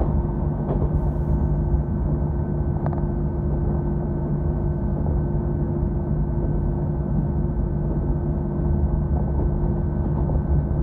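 KiHa 66 diesel railcar running at a steady speed, heard from inside the cabin: a constant engine drone with a steady whine over the low rumble of the running gear.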